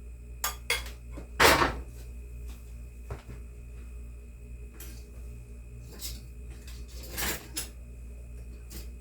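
Kitchen utensils clinking and scraping against dishes and a pan, about eight separate clatters, the loudest a short scrape about a second and a half in, with a low steady hum underneath.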